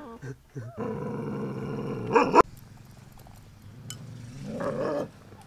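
Adult German shepherd giving a long, low warning growl at a puppy, about a second in. It ends abruptly in a short loud outburst, and a quieter growl rises again near the end.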